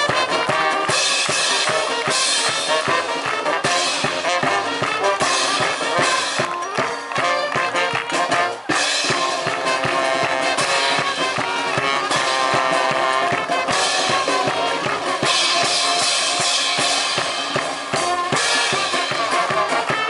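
Live brass band with drums playing a lively tune, horns over a steady drum beat.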